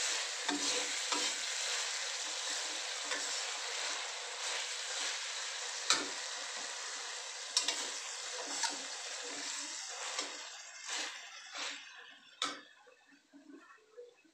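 Sliced red chilies and garlic sizzling in a stainless steel wok while a metal spatula stirs them, scraping and clacking against the pan several times. The sizzling dies down over the last few seconds.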